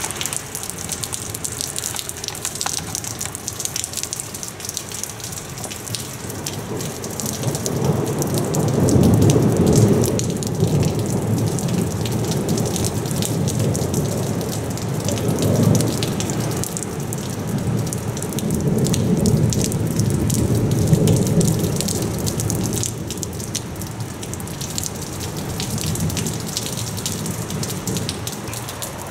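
Steady rain hissing and pattering, with long low rumbles of rolling thunder that swell up about eight seconds in, again around the middle, and once more about two-thirds of the way through.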